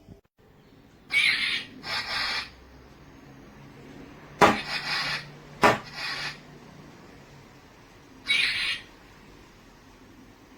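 Toy lightsaber's electronic sound effects: short swing whooshes and two sharp clash hits over a faint low hum.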